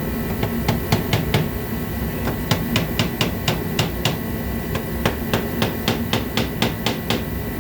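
Small hammer tapping repeatedly: a long run of sharp, light taps, a few per second, with short pauses between groups.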